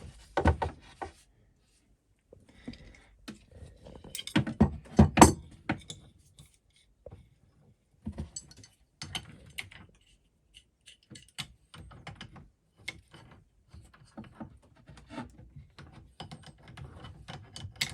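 Adjustable spanners clicking and knocking against water pipe fittings as they are undone, with a few louder knocks about four to five seconds in, then a long run of light irregular clicks.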